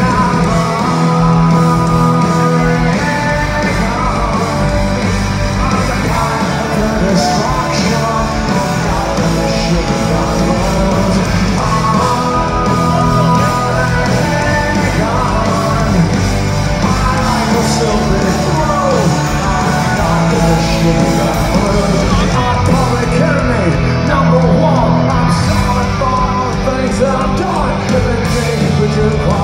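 Punk rock band playing live, loud and steady: electric guitars, bass and drums with a lead vocal.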